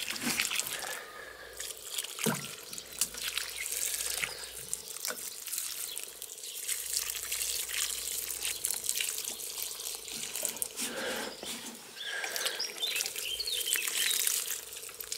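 Water pouring from a plastic watering can onto loose garden soil, a continuous splashing trickle.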